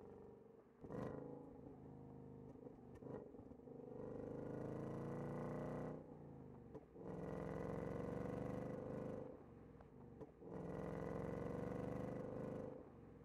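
2024 Ford Mustang GT's 5.0-litre V8 engine running, with three louder spells of acceleration about four, seven and ten seconds in, each rising slowly in pitch, between quieter stretches. A short sharp burst comes about a second in.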